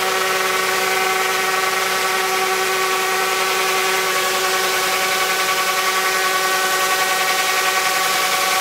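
A machine running steadily with a strong, even hiss over a few steady tones.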